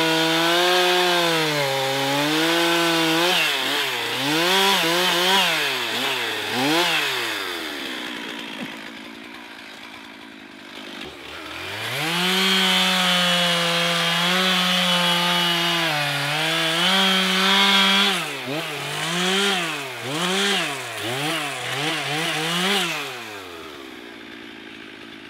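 Two-stroke chainsaw cutting into a tree at full throttle, the engine then revving up and down several times. It drops off for a few seconds midway, comes back to a steady full-throttle cut, then revs up and down again before falling away near the end.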